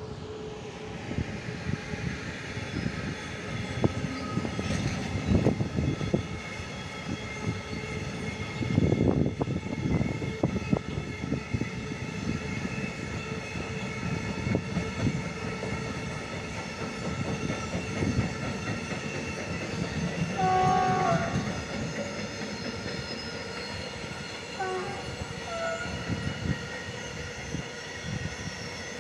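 A train rolling past, wheels clacking over rail joints, with a steady rolling din and several steady high whining tones. About 21 s and 25 s in, a locomotive horn gives two short blasts, each stepping down from a higher to a lower note: the Polish Rp1 'Attention' signal.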